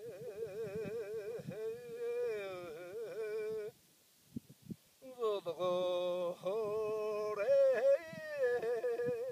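A man singing slow, long-held high notes with a strong wavering vibrato. The voice breaks off for about a second and a half midway, with a couple of faint clicks in the gap, then resumes.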